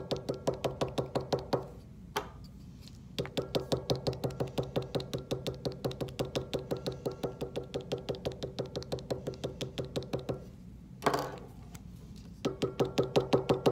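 Tempera paint stick tapped rapidly against paper on a hard tabletop, stippling dots. It makes a run of light knocks at about five a second, broken by two short pauses, with one louder single knock in the second pause.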